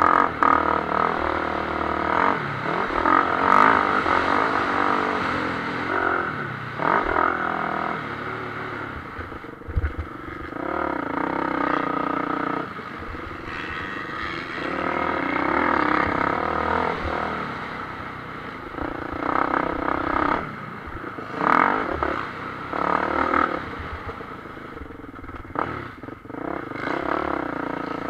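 Onboard sound of a motocross bike's engine racing on a dirt track, revving hard and backing off again and again through the corners and straights. A few sharp knocks come from the bike over the rough ground.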